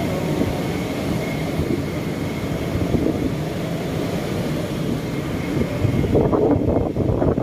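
Strong storm wind buffeting the phone's microphone as a steady loud rumble, turning uneven and gusty near the end.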